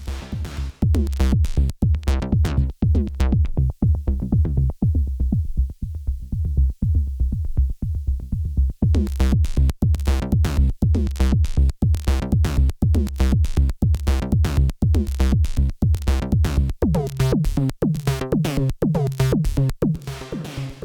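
Arturia MiniFreak synthesizer playing a fast, pulsing sequenced pattern of short notes over a heavy bass. The bright top end fades out about four seconds in, leaving a dark, muffled pulse, and opens up again about nine seconds in.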